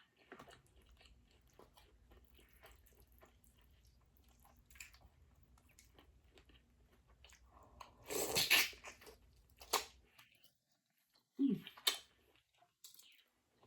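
Close-miked mouth sounds of someone eating seafood boil: soft wet chewing and small smacks and clicks, with a louder burst about eight seconds in and a few sharp smacks after it.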